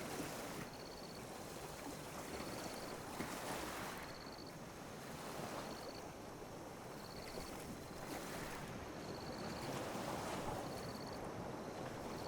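Gentle ocean waves lapping on a beach, the wash swelling and easing every few seconds. A faint short high chirp repeats about every second and a quarter.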